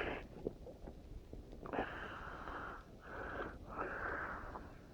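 Three wheezy breaths close to the microphone, each a short hiss under a second long.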